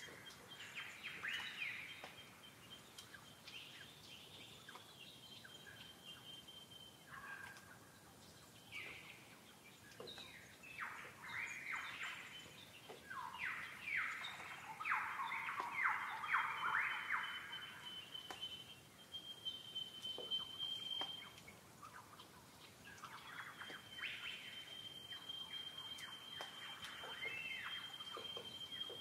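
Wild birds chirping and calling, with a dense run of quick calls around the middle, over a thin high steady whistle that holds for several seconds at a time.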